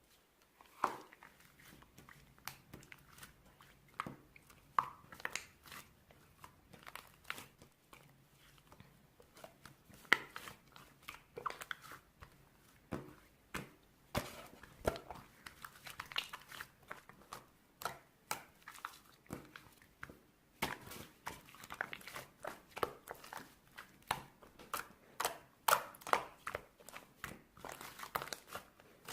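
Irregular light tapping, clicking and crinkling close to the microphone, dozens of small clicks of varying loudness with no steady rhythm.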